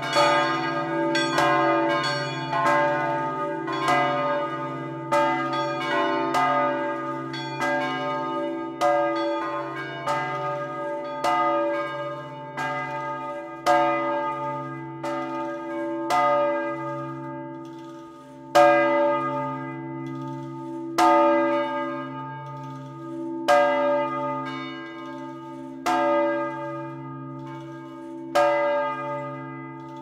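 Church bells ringing: repeated strikes, each ringing on over a steady low hum. The strikes come quickly, about every 0.7 seconds, for the first dozen seconds, then slow to one about every two and a half seconds.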